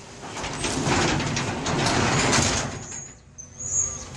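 Garage door coming down along its track, a steady rumbling rush that dies away about three seconds in, followed by a thin high squeal near the end.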